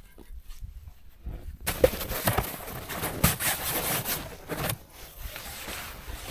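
Boots crunching in deep-frozen snow in an irregular run of crisp steps, with rustling as a foam sleeping mat is carried. The crunching starts suddenly about two seconds in, after a quieter opening.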